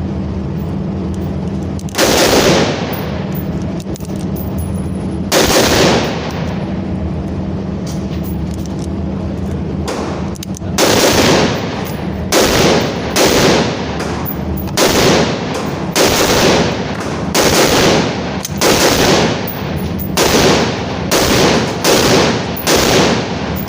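Gunshots from a semi-automatic firearm, about fifteen in all: two single shots a few seconds apart, then a steady string of roughly one shot a second, each with a short echo.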